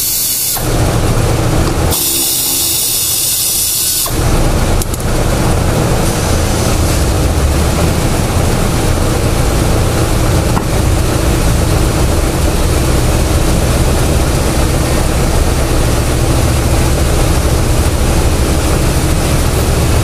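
Two short blasts of hissing air or spray, the second lasting about two seconds, then a steady low motor drone that starts about four seconds in.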